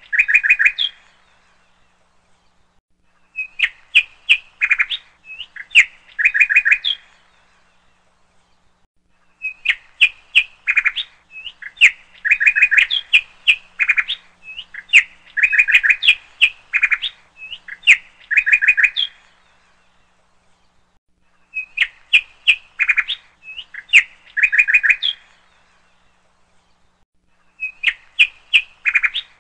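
Birds chirping in phrases of rapid, high chirps a few seconds long, broken by pauses of about two seconds.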